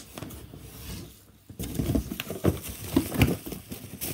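Cardboard box being handled and opened, with irregular knocks, scrapes and the rustle of bubble wrap packing, after a brief lull about a second in.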